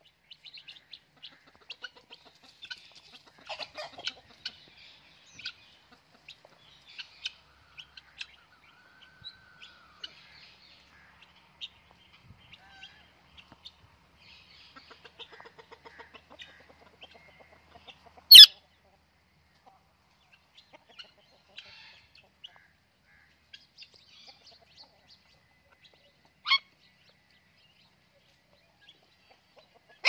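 An Alexandrine parakeet and an Indian ringneck parakeet making soft, rapid clicks and chirps, with two loud, sharp single calls, one about 18 seconds in and a quieter one near the end.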